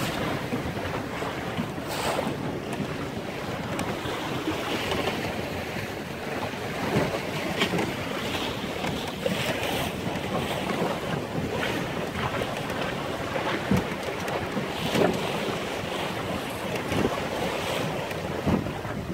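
Wind buffeting the microphone over the rush of choppy water along the hull of a small sailboat under sail, with irregular louder splashes as the boat meets the chop.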